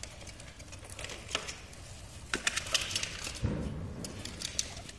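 Irregular soft clicks and crackles from a mother guinea pig shifting in hay and nibbling at her newborn pup during the birth, with a duller bump about three and a half seconds in.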